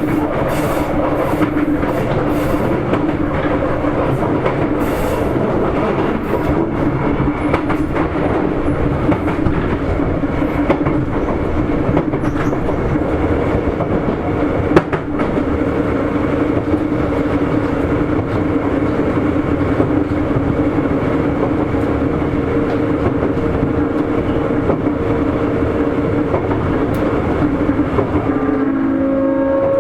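Sotetsu 8000 series electric train running at speed: a steady rumble of wheels on rail with rail-joint clicks and a steady hum from the drive. There is one sharp click about halfway, and near the end a new, higher whine comes in over the hum.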